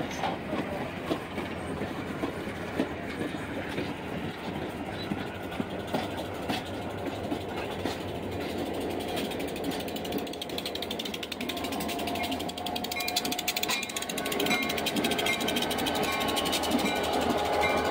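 A train rolling slowly over the rails, with scattered metallic clicks and clanks. From about two thirds of the way in, a steady metallic squeal joins in and the sound grows louder.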